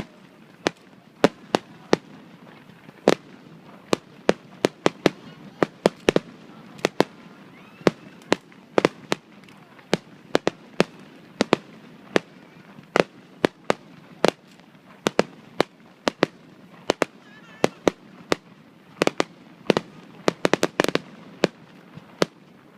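Fireworks display: a long, irregular run of sharp bangs from shells bursting overhead, a few every second, with a quick cluster of them near the end.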